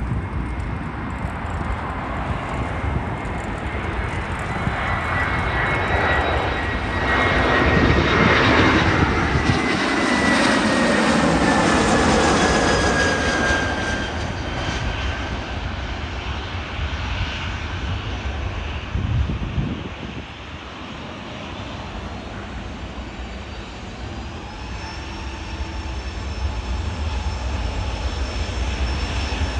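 Airbus A321-211 jet airliner on landing approach: engine rush and whine swell as it passes close by, loudest about a third of the way in, with the whine falling in pitch as it goes past, then fading. Near the end a higher whine rises again from the aircraft on the runway.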